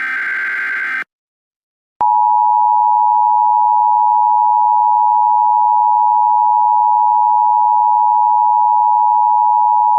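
Emergency Alert System alert tones: the last of the buzzy SAME data-header bursts cuts off about a second in. After a second of silence, the steady two-tone EAS attention signal starts at full loudness and holds without change.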